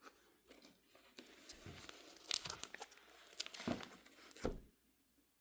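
Plastic pages of a card notebook crinkling and rustling as they are handled and pulled apart, pages that stick together; a few sharper crackles stand out about two, three and a half and four and a half seconds in.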